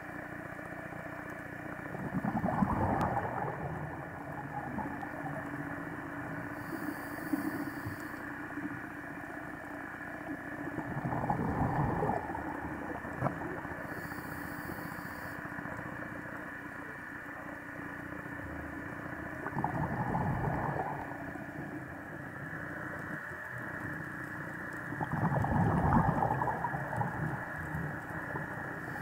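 Scuba diver's breathing through a regulator, picked up underwater: four swells of exhaled bubbles, roughly every eight seconds, over a steady hum. Short high hisses come between them.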